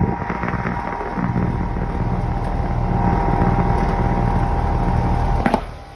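Trane two-ton central air conditioner condensing unit running, its compressor and condenser fan motor giving a steady low hum with a thin steady tone above it. A knock comes near the end, after which the sound is quieter. The fan motor is drawing a little over its rated current.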